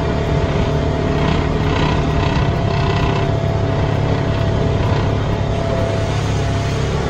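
Jeep Wrangler driving along a dirt trail, heard from inside the cab: its engine runs at a steady pace with a continuous low hum and road noise.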